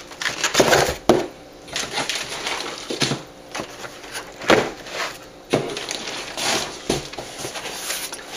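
Cardboard boxes and packing material handled while items are pulled out of a shipping box: irregular rustling and crinkling with occasional sharp knocks.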